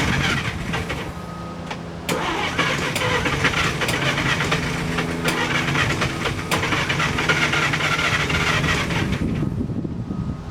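A 1947 DeSoto's flathead six cranking on the starter without catching, with a few sharp clicks along the way; it stops near the end. The engine is being turned over so its fuel pump can fill the empty carburetor.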